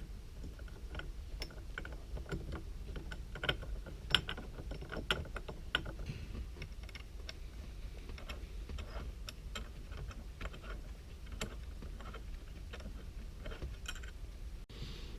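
Irregular small clicks and metallic taps of quick-release hub and steering wheel parts being handled and fitted together by hand, a few louder clicks standing out.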